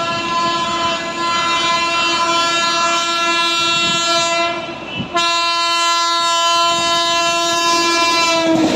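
Electric locomotive's air horn sounding a long, loud blast, a short break about five seconds in, then a second long blast that stops near the end.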